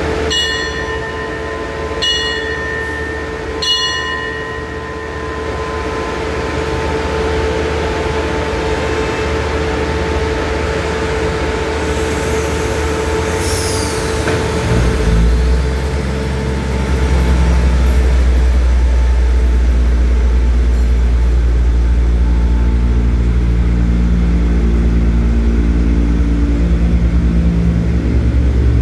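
Diesel passenger train standing at the platform with its engine humming steadily, three short high beeps in the first four seconds. About fifteen seconds in the engine revs up and the train pulls away, its diesel engine running loud and steady under load as the cars roll past.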